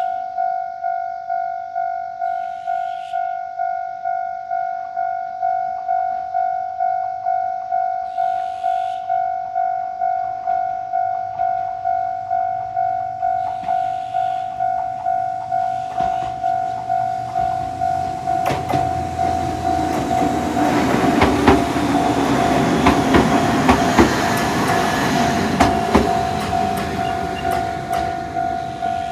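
Japanese level-crossing electronic warning bell of the Tokai type, ringing steadily at about two strikes a second. About halfway through, a train comes up and passes over the crossing. Its running noise builds, and its wheels click over the rail joints while the bell keeps ringing.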